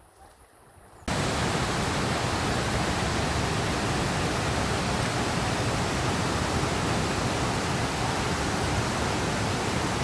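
River rapids: water rushing white over boulders, a loud, steady rush. It starts abruptly about a second in, after a quieter opening.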